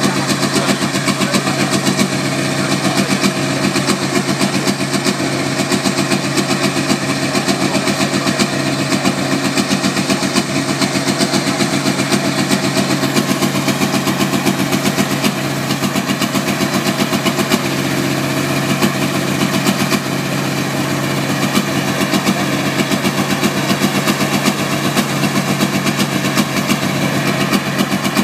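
Diesel engine of a Valtra pulling tractor idling steadily, with no revving.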